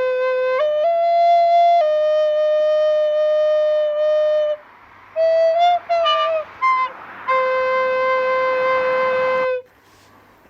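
A flute playing a slow solo melody. It holds a note that steps up twice, then a long note. A quick run of short notes follows about five seconds in. It ends on a long, breathy held note that stops near the end.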